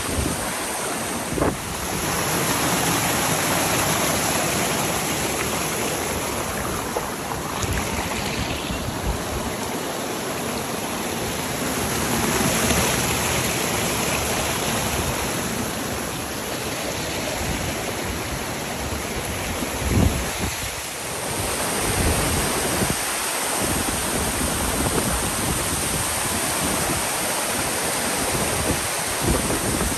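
Wind blowing on the microphone, a steady rushing with gusty low rumbles that swell and ease, and two brief knocks, one just after the start and one about two-thirds of the way through.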